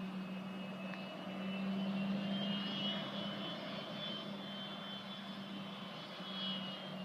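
Distant regional jet's engines running: a steady high whine over a low drone, swelling slightly a couple of seconds in.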